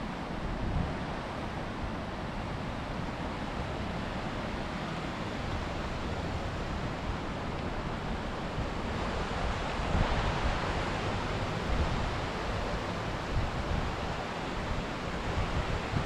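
Steady rushing noise of running water, with wind buffeting the microphone in low rumbles; it swells a little about ten seconds in.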